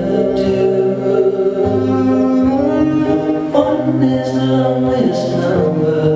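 Recorded song playing: a singer's held notes over a sustained instrumental backing with a steady low drone.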